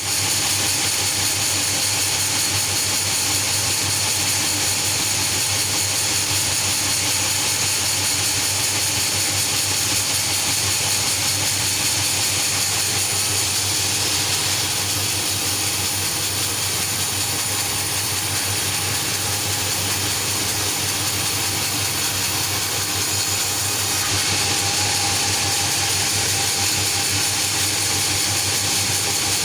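Sawmill machinery running steadily: a constant mechanical drone with a low hum and a strong hiss, easing slightly for a while in the middle.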